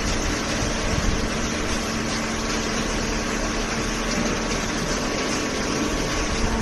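Hydraulic baler's electric motor and hydraulic pump running steadily: a constant hum over an even mechanical hiss.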